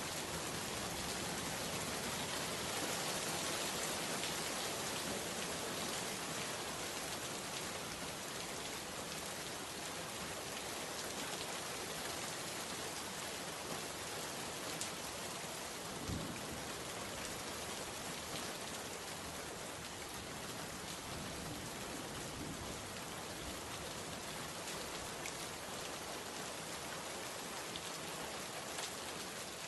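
Steady, even rain falling and pattering on surfaces, with scattered individual drop impacts and a single duller thump about halfway through.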